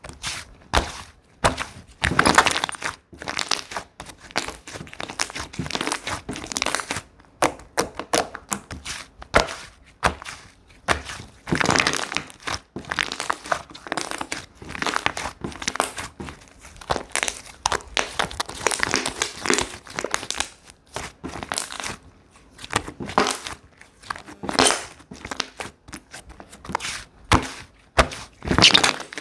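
Slime being squished and stretched by hand, giving dense, irregular crackling clicks in clusters.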